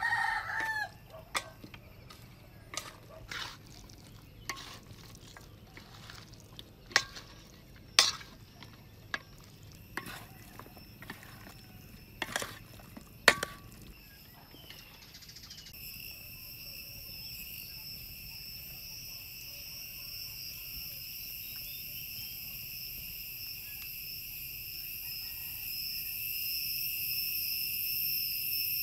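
A rooster crows right at the start, and sharp clicks and taps of metal tongs and chopsticks handling meat on a metal platter follow for about the first half. From about halfway a steady high-pitched insect chorus takes over and grows slowly louder.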